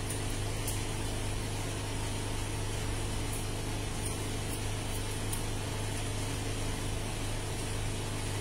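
Steady low machine hum in a small room, with a few faint, short scissor snips as wet hair is cut.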